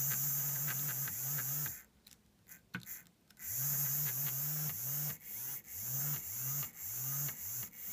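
Small brushed DC motor whirring in short runs, with a high hiss over a low steady tone. It runs for about two seconds, pauses with a few clicks, then from about three and a half seconds in stops and restarts every half second or so, spinning up each time, as the 555 timer's pulses drive it back and forth like a wiper.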